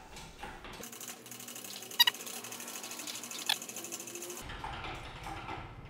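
Hydraulic engine crane raising a steel lift runway on a strap: a fast run of light mechanical ticking and creaking, with two sharper metallic clicks near the middle.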